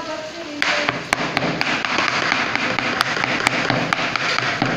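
Knife chopping a gourd on a cutting board: quick crunching strokes through the firm flesh, with sharp taps of the blade on the board.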